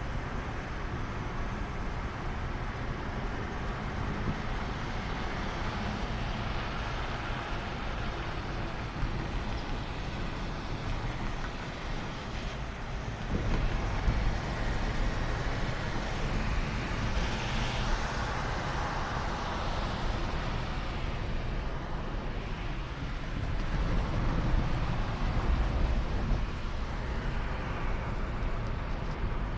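Steady road noise from a moving car, heard inside its cabin: a low engine and tyre rumble with a hiss above it. It gets louder about halfway through and again near the end.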